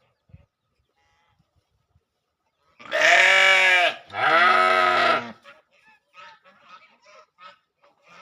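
Sheep bleating: two loud, long bleats of about a second each, back to back, rising and then falling in pitch. A run of short, quieter animal calls follows.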